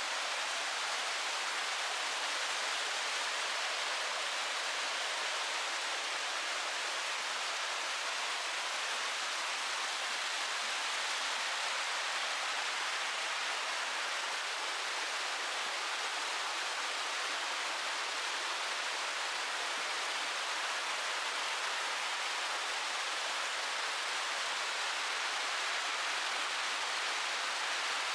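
Mountain stream rushing steadily over rocky cascades, an even, unbroken roar of falling water.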